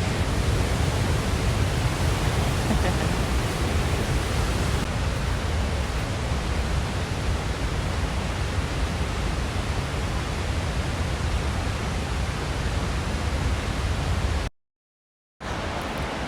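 Waterfall rushing, a steady dense roar with a deep low rumble. It cuts off abruptly near the end, and after about a second of silence a quieter rush of water returns.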